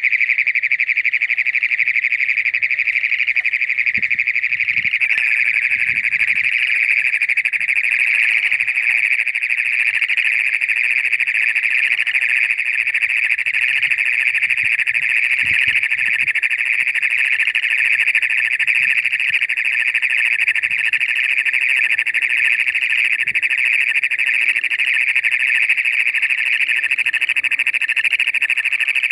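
Great Plains toad's mating call: one long, loud, unbroken trill held through the whole stretch, the male calling with his vocal sac fully inflated.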